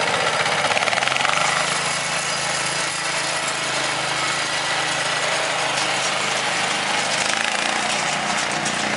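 Small engine of a two-wheel walking tractor (motor hoe) running steadily as it drives along, towing a seated trailer.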